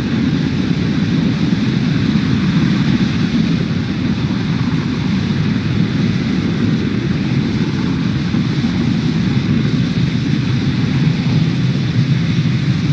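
Falcon 9 first stage's nine Merlin 1D engines heard from the ground during ascent as a steady, loud rumble with a hiss above it, about half a minute after liftoff.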